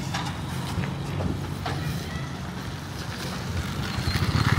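A motor vehicle engine running nearby: a steady low rumble that swells near the end, with a few faint ticks over it.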